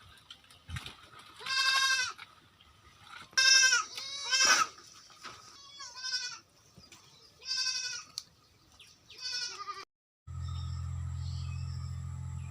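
Goats bleating, about six separate calls in turn, some wavering. Near the end the sound cuts out and a steady low hum begins.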